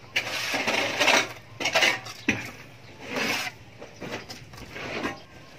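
Steel mason's trowel scraping wet pure-cement finish mortar off a metal float and onto a wall top: about five separate metal-on-metal scrapes.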